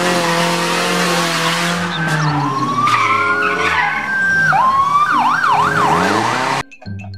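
Police car engine revving hard with tyres squealing as the car slides, and a siren wailing rapidly up and down over it in the later part. The sound cuts off suddenly shortly before the end.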